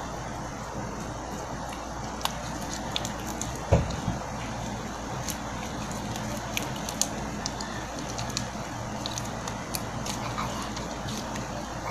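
Stiff homemade slime being kneaded and stretched by hand, giving scattered small clicks and pops, with one louder thump about four seconds in, over a steady background hum.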